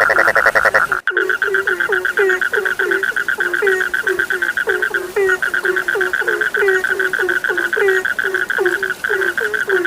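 Frog chorus: short, downward-sliding croaks repeat about three times a second over a steady, fast-pulsing trill. A louder rattling call sounds in the first second and cuts off abruptly.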